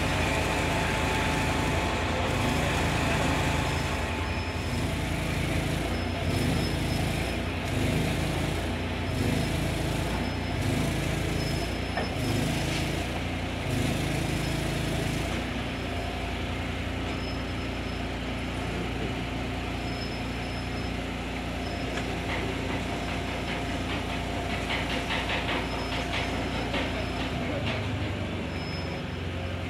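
Railway passenger cars rolling past on the track, wheels on rail. The wheels clack in a regular rhythm during the first half, then settle into a steadier rumble.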